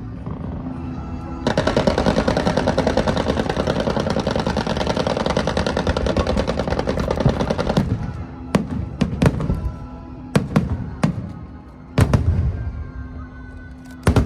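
Fireworks going off: a dense, rapid crackling barrage lasting about six seconds, then about six separate loud bangs.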